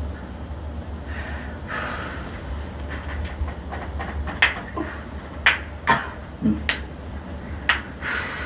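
Hands massaging the client's hip and buttock: breathy rubbing noises and about five sharp clicks in the second half, over a low steady hum.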